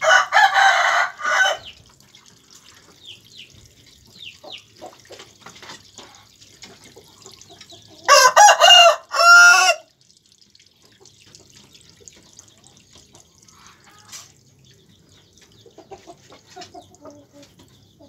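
A rooster crowing twice: one crow right at the start and another about eight seconds in, with faint small chirps and scuffles between.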